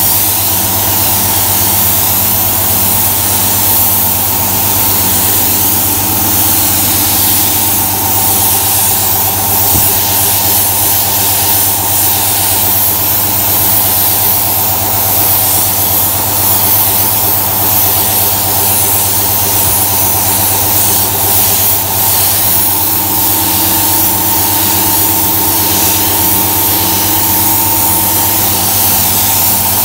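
Air compressor running steadily with a low hum, under the hiss of a Walcom spray gun with a 1.8 nozzle spraying textured bumper paint.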